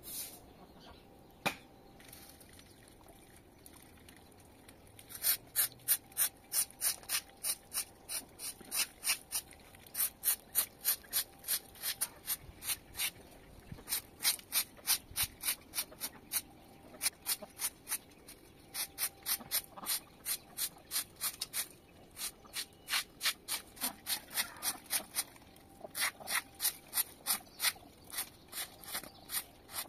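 Straw broom sweeping a yard floor in quick, rhythmic swishes, about two to three strokes a second, starting about five seconds in and going on with a few short pauses.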